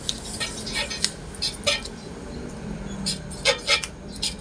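Light, irregular clicks and scratches of writing labels onto a wiring diagram, over a faint steady hum.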